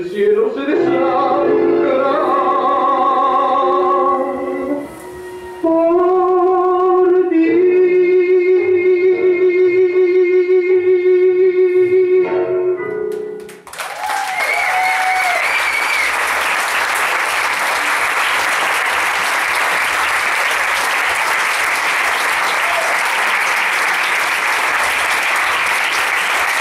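The closing bars of an Argentine tango recording end on a long held note with vibrato. The music stops about halfway through, and the audience breaks into steady applause.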